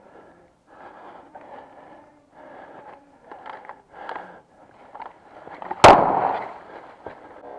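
Footsteps on rough ground, then about six seconds in a single sharp, very loud bang from an airsoft grenade, fading over about a second.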